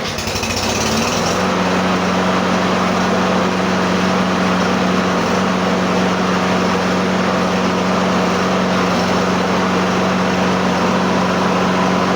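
Briggs & Stratton lawn mower engine catching and revving up over the first second and a half, then running steadily at high speed.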